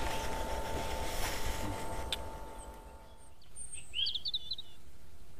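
Outdoor ambience with a faint steady hiss and a thin steady tone that stops about three seconds in. About a second later a bird gives a short burst of rising chirps.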